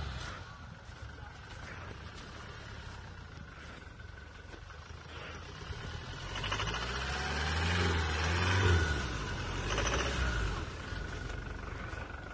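A car engine running, getting louder and rising then falling in pitch as it revs, between about six and ten seconds in, over a steady low rumble.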